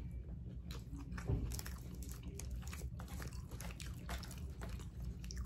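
A person biting and chewing food close to the microphone: faint, irregular wet clicks and small crunches.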